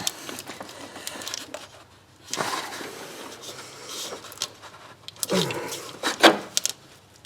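Brittle, age-hardened plastic ignition-coil electrical connector being pried and worked off by hand, with scattered clicks and cracks and one sharp crack about six seconds in as the connector snaps.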